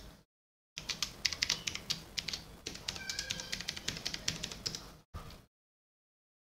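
Fast typing on a computer keyboard, a dense run of key clicks lasting about four seconds while a password is entered, followed by one short extra click burst before it stops.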